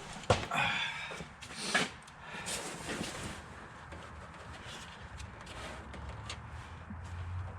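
A sharp knock, then two short bursts of rustling noise and a few light clicks as things are handled at the workbench, with a low steady hum coming in near the end.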